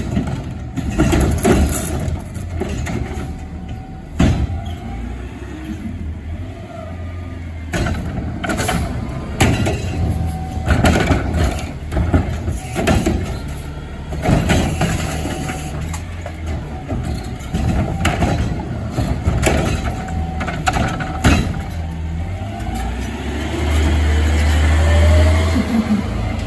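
Natural-gas front-loader garbage truck with an automated carry-can arm emptying recycling carts. The engine and hydraulics run while the arm lifts and tips the carts, with repeated clanks and the clatter of recyclables dropping into the can. Near the end the truck pulls away close by, its engine rising to a loud rumble.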